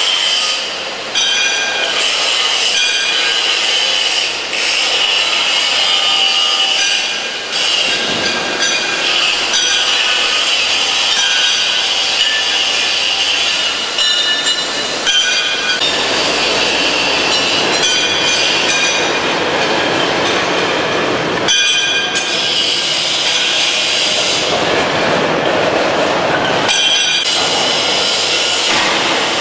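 Power tools cutting and grinding steel: a continuous high, screeching rasp that changes abruptly a few times.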